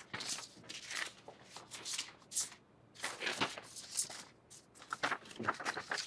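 Sheets of paper rustling and flapping as they are picked up and leafed through, in a run of short, irregular bursts.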